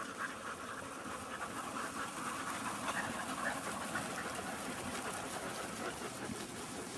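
Steady rapid panting of hard-run animals, a flock of sheep and the Australian Cattle Dog driving them, over a dense rustling haze.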